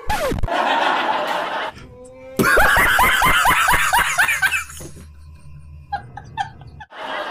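A man laughing loudly in rapid bursts, about four or five a second, for roughly two seconds from about two and a half seconds in. Before it come a quick falling swoop sound right at the start and a stretch of noisy laughter.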